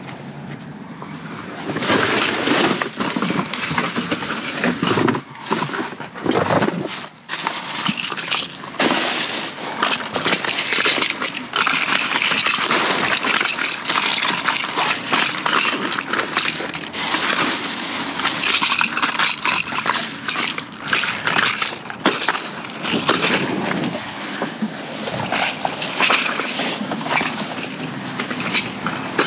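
Continuous crinkling, rustling and clattering of cardboard boxes and trash being rummaged through in a dumpster, starting about two seconds in.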